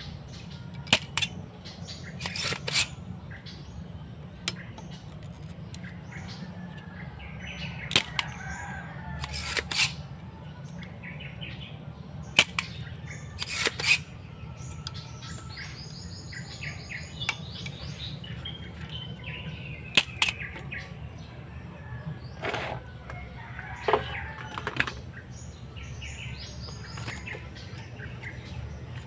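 A spring-loaded desoldering pump snapping as it fires, about ten sharp clicks, some in quick pairs, as solder is sucked off the joints of a CRT TV circuit board. Birds chirp faintly between the snaps, over a steady low hum.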